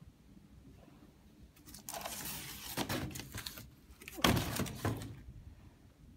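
Cardboard boxes being handled: a rustling scrape with a few clicks, then a louder knock and scrape about four seconds in.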